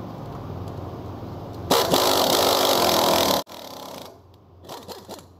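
Pneumatic impact wrench turning the screw of a bushing press tool, pressing new sleeves into a heavy trailer's drum-brake spider. It runs loud for about a second and a half, starting near two seconds in, and stops abruptly, followed by a few faint clicks.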